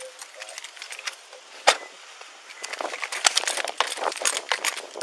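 A police body-worn camera jostling as its wearer moves: gear and clothing rattle against it in irregular clicks and knocks. There is one sharp knock a little under two seconds in, then a quick, dense run of them through the second half.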